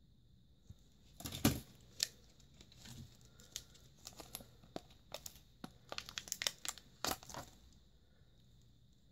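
Thin plastic coin packaging crinkling and crackling in gloved hands as silver rounds are handled, in irregular sharp crackles, loudest about a second and a half in and again near the end.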